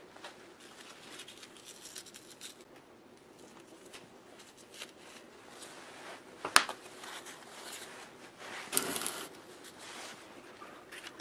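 Small handling sounds of fittings on an electric motor that is not running: scattered light ticks and rustles, one sharp click about six and a half seconds in, and a brief scraping rustle about nine seconds in.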